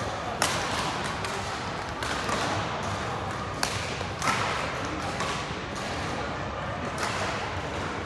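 Badminton rackets hitting a shuttlecock in a rally, a string of sharp hits at uneven intervals, over steady hall chatter.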